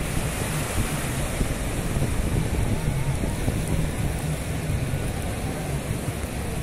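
Sea surf breaking and washing up the beach, a steady rushing noise, with wind rumbling on the microphone.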